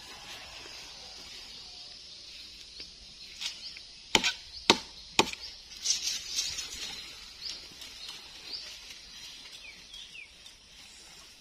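Machete chopping into a felled coconut palm trunk: three sharp strikes about half a second apart a little over four seconds in, with a few lighter knocks around them. High chirping runs in the background.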